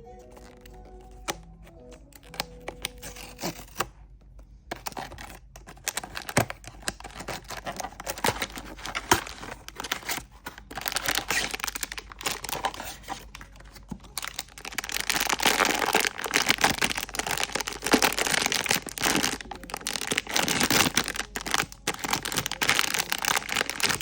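Blind box packaging being torn open and handled: plastic and foil wrapping crinkling and crackling with many sharp clicks, heaviest in the second half.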